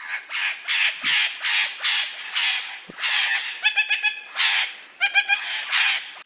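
Parrot squawking: a quick series of about a dozen raspy squawks, broken twice, about four and five seconds in, by short runs of faster, more tuneful chatter.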